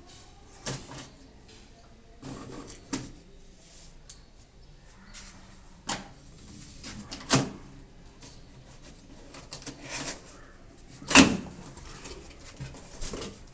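Cardboard carton being opened and handled: scraping and rustling with scattered sharp knocks and thumps, the loudest one late on.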